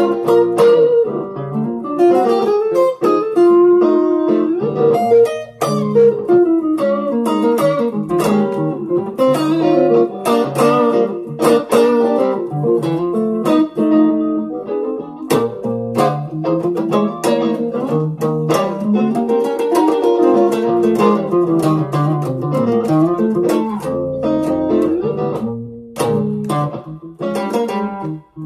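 Stratocaster-style electric guitar played through a Zoom G1on multi-effects pedal: a B-flat blues of picked single-note phrases and chords, with a short break about five and a half seconds in.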